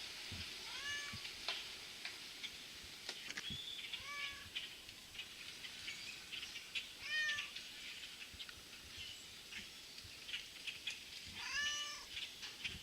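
A large flock of European starlings chattering, a dense mass of squeaks, clicks and whistles. Four drawn-out, cat-like mewing calls rise and fall over it, spaced a few seconds apart.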